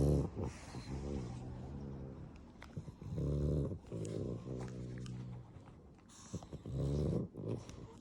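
A black pug snoring in its sleep: a pitched snore with each breath, several in a row with short pauses between them.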